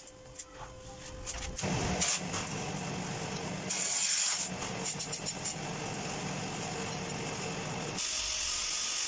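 TIG welding arc on stainless steel pipe: a steady buzzing hiss that sets in about a second and a half in, turning brighter and hissier near the end.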